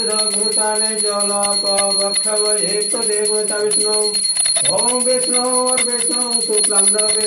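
Puja hand bell rung rapidly and continuously, giving a steady high ringing, with people's voices going on over it.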